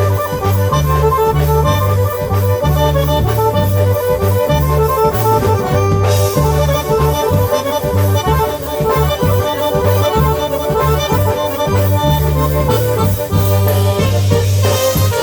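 Live polka band playing an instrumental break, accordion lead over a bass line that steps between notes and a steady drum beat.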